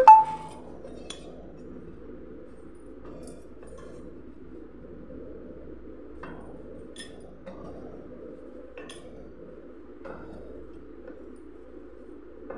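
A single sharp metallic clink that rings briefly at the start, then the steady low rumble of a wooden rolling pin rolling chapati dough on a steel plate, with a few light taps.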